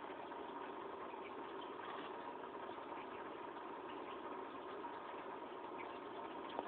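Steady mechanical hum with a hiss over it, like a small motor running, with a few faint ticks.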